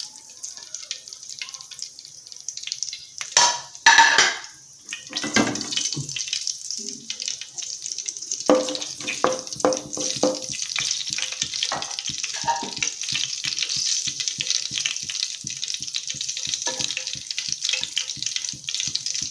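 Fennel seeds sizzling in hot coconut oil in a pan, with a louder burst of sizzle about four seconds in. From about halfway on, a spoon stirs and scrapes against the pan in a quick run of taps.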